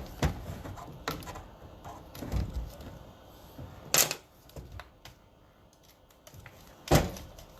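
Small clicks and knocks of hand work on a connector with a Phillips screwdriver, tools and small parts handled, with two sharper clacks about four and seven seconds in.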